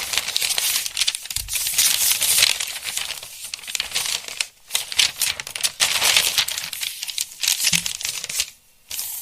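Paper pages of a book rustling and crackling as they are handled and flipped, a dense run of rustles with a few short pauses, dropping away near the end.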